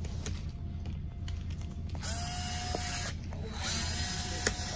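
Small electric screwdriver running in two short bursts of about a second each, each a steady motor whine that spins up at the start, backing out the battery screws in a laptop.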